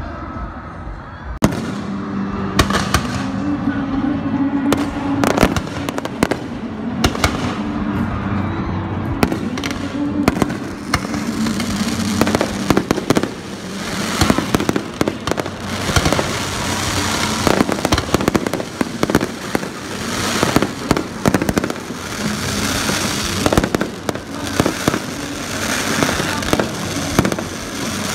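Fireworks display: aerial shells bursting with sharp bangs, spaced out at first, then from about halfway through a dense barrage of bangs and crackling.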